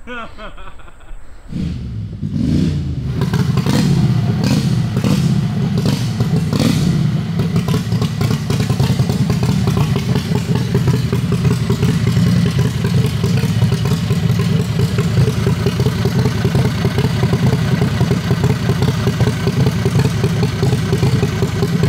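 Heavily modified 670cc Harbor Freight V-twin in a drag rail catching about a second and a half in. It revs unevenly for a few seconds, then runs steadily.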